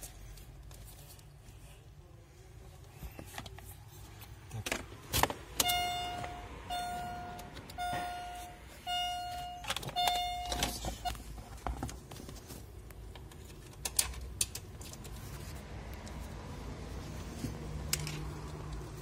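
An electronic buzzer beeps five times, about one beep a second, in a steady mid-pitched tone. Around it are the clicks, knocks and rustling of car wiring and connectors being handled, with the sharpest knocks about 5 and 14 seconds in.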